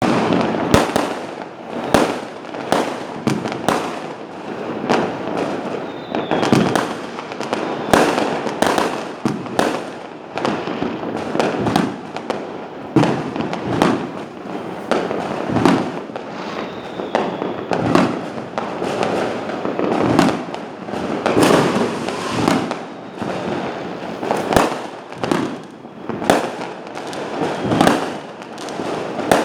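Fireworks display: a continuous run of shells bursting, with sharp bangs coming one or two a second and crackling in between. A faint falling whistle is heard twice, around six and sixteen seconds in.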